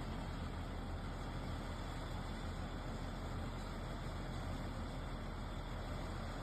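An engine running steadily: a constant low rumble with a noisy hiss above it.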